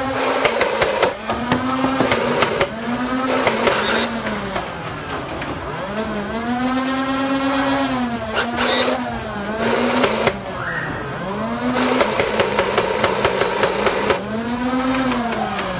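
Nerf Rival Nemesis flywheel blaster spinning up and winding down again and again, a whine that rises and falls in pitch. Between the spin-ups come bursts of rapid full-auto fire: quick rattling clicks, in three main bursts at the start, about halfway through and near the end.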